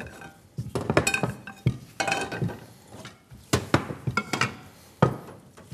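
Cookware and kitchen utensils knocking and clinking on a counter and stovetop: an irregular clatter of sharp knocks, a few with a short metallic ring.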